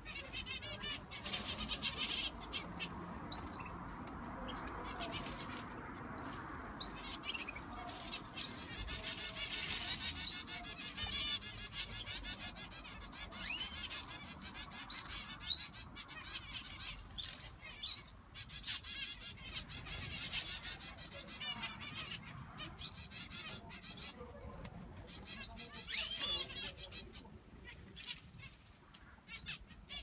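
A flock of small aviary finches chirping and twittering, with many short high calls overlapping, and a fast, dense trilling song from about nine to twelve seconds in.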